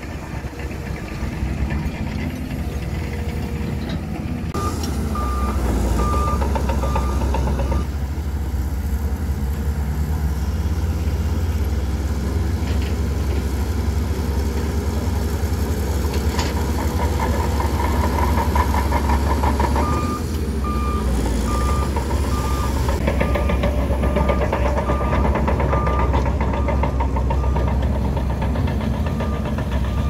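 Bulldozer's diesel engine running steadily, with a reversing alarm beeping at an even pace for a few seconds about five seconds in and again through the last third.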